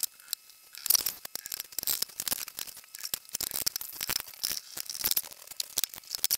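Small plastic clicks and scrapes from a DJI Mavic Air 2 drone's body and arms being handled and worked on by hand. A busy run of sharp clicks starts about a second in.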